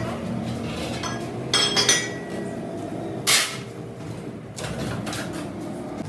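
Metal tools clinking and knocking, with a couple of ringing strikes about a second and a half in and a short hiss a little past halfway, over a steady low hum.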